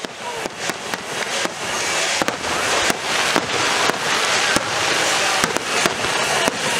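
Aerial fireworks display: shells bursting with sharp bangs in quick, irregular succession over a continuous dense crackle, building in loudness over the first couple of seconds.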